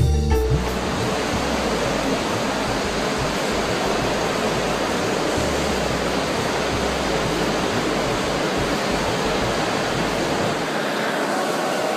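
Music breaks off about half a second in, giving way to a steady, even rushing hiss with an uneven low rumble beneath it that drops away near the end.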